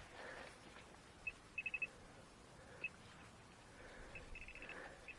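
Short high beeps from a metal detector, all at one pitch. First a single beep, then a quick run of four, another single beep near the middle, and faster runs of beeps near the end as the target is located.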